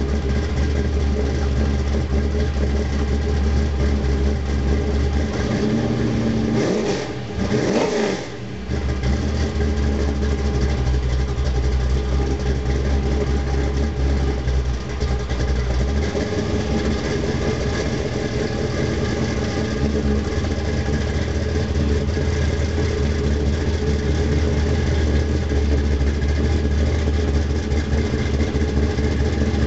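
A 1955 Chevrolet wagon's 360 small-block V8 is idling steadily. It is revved up and back down once, about seven seconds in. Near the end the car rolls out toward the microphone at idle and grows a little louder.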